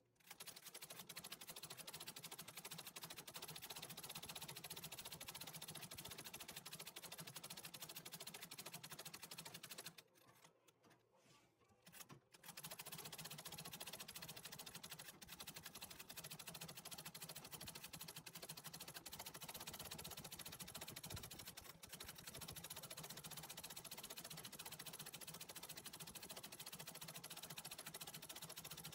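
Antique treadle sewing machine running, its needle stitching steadily as it embroiders, heard faintly. It stops for about two seconds about ten seconds in, then runs on.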